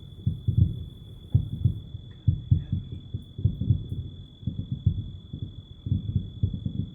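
Distant fireworks finale: a rapid, irregular barrage of low booms, several a second, that carries on even though the shells can no longer be seen.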